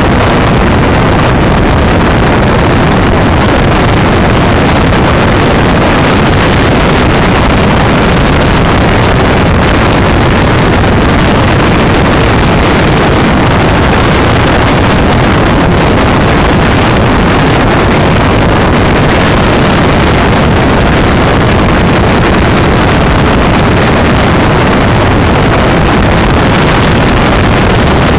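Loud, steady wind rush and rolling road noise on the onboard camera of a battery-electric Greenpower race car running at speed on tarmac, with no engine note.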